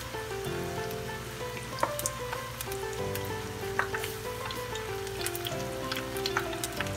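Chicken strips deep-frying in hot oil, a steady sizzle with scattered sharp crackles and pops. Background music of held notes plays over it.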